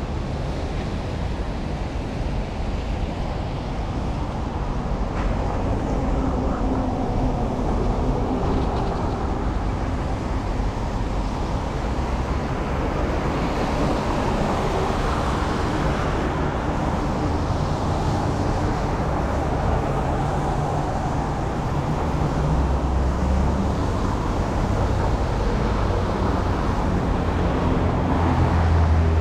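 Steady city street traffic noise: cars and other vehicles running past on rain-wet roads, with a constant low rumble.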